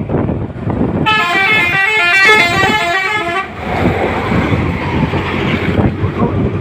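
A bus's Basuri telolet multi-tone horn plays a quick melody of several notes stepping up and down, from about a second in until about three and a half seconds. Loud rumble and rush of the passing bus run underneath throughout.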